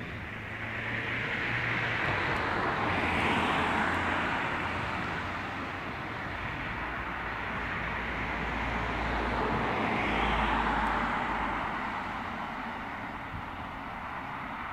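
Road traffic passing close by: a steady rush of tyres and engines that swells twice, about three seconds in and again about ten seconds in.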